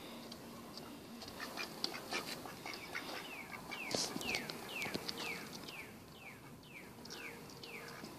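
A bird chirping over and over in the background: short downward-sliding chirps, about two a second, through the second half. Light scuffling and taps from a mallard drake and a cat tussling, with a brief rustling burst about four seconds in.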